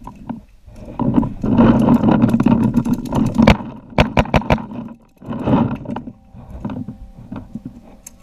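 A quick string of about five sharp pops from a paintball marker firing, a fifth of a second apart, about four seconds in. Before it comes a few seconds of loud, rough scuffling noise, with another short rough burst afterwards.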